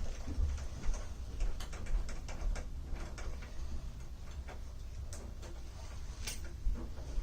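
Light clicks and ticks of small lock parts being handled and fitted onto a deadbolt, with one sharper click about six seconds in.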